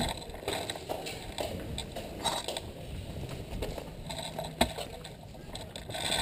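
Rustling and scuffing handling noise on a body-worn GoPro camera, with a few sharp clicks about two seconds apart.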